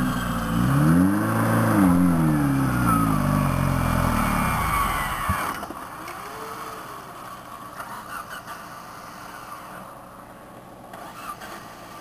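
Off-road 4x4's engine revved hard under throttle, its pitch rising and then falling and wavering, for about five seconds. It then drops back to a quieter, lower running, with one brief rev about a second later.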